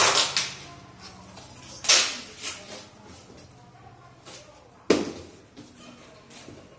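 Packing noises from a cardboard box wrapped in plastic and packing tape: a few short rasping, crinkling bursts of tape and plastic being handled. The loudest come about two seconds in and about five seconds in.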